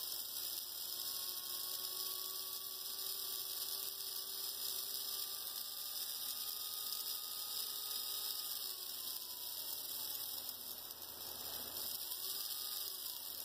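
Rebuilt HO scale pancake motor from a Life-Like GP38-2 running on a bench power pack in reverse, freshly greased: a steady electric whir with a faint whine that holds, drops about two-thirds of the way through, then rises and falls briefly near the end as the speed changes.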